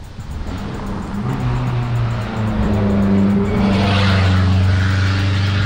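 Background music with low held notes that step from one pitch to another, and a rush of noise that swells and fades about four seconds in.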